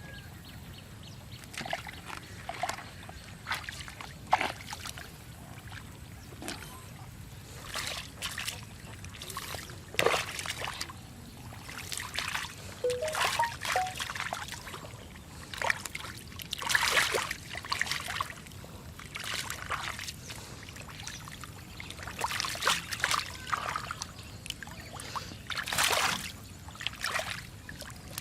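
Shallow muddy water splashing and sloshing in irregular bursts as hands work through it.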